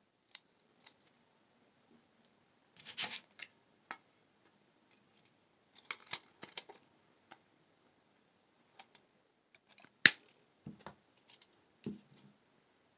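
Small hand tools for jewelry, pliers and wire cutters, clicking and snipping on brass wire in scattered bursts of sharp clicks, with one louder snap about ten seconds in.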